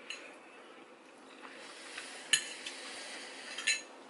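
Forks scraping and clinking against plates of noodles: a quiet scrape, then two sharp clinks about a second and a half apart, near the middle and near the end.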